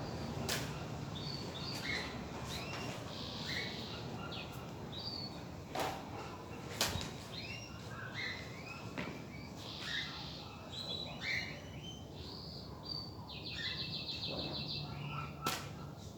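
Birds chirping and calling in short, scattered phrases, with a quick trill near the end, along with a few sharp clicks.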